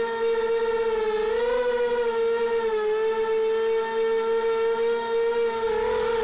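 Quadcopter drone's motors and propellers whining at one steady pitch, heard from its onboard camera; the pitch rises briefly about a second in, dips just before three seconds and wavers again near the end as the throttle changes.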